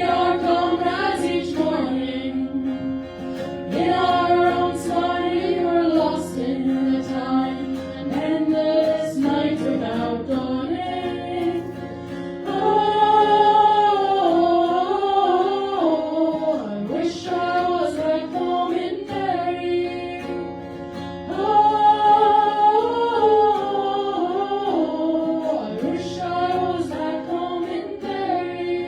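Several voices singing a song together in harmony, in phrases of long held notes.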